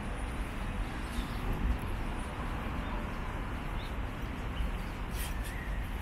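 Steady outdoor city background noise: an even low rumble with a hiss over it, with a few faint ticks near the end.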